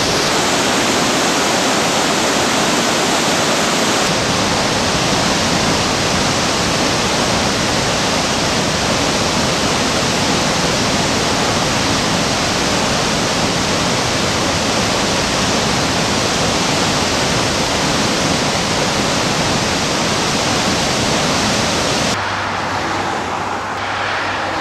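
Waterfall and whitewater rapids rushing, a loud steady wash of water noise. Near the end it becomes somewhat quieter and duller.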